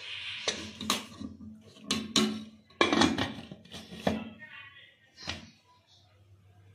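A run of metallic clanks and knocks as a pressure cooker's metal lid is handled and closed onto the cooker, some with a short ring. They are spread over the first five seconds and stop near the end.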